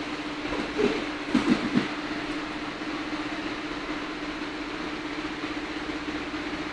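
Steady mechanical hum over an even hiss, with a few brief louder sounds between one and two seconds in.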